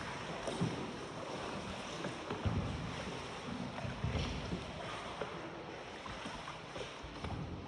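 Ride on a small boat on the water: a steady wash of water and wind noise with irregular low knocks and bumps.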